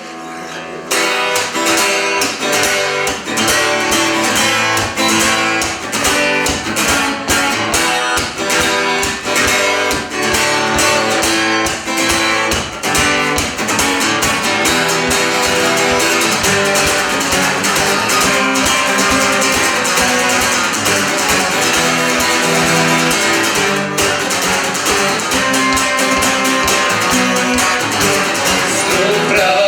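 Instrumental guitar music: strummed and plucked guitars with bass playing a steady rhythmic passage, coming in about a second in after a brief quiet gap.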